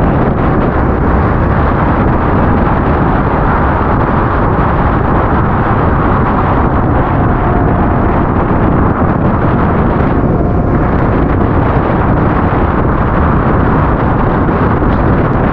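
Motorcycle on the move: steady, loud wind rush over the microphone with the engine and road noise running underneath.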